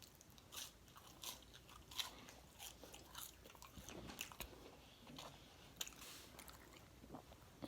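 Faint chewing and biting: soft, irregular mouth clicks and crunches from someone eating.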